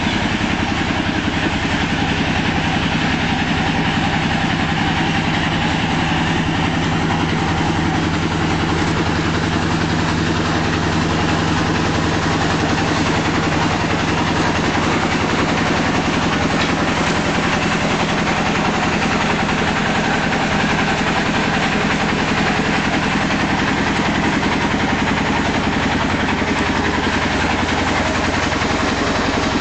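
An engine running steadily at idle, an even low drone that neither rises nor falls.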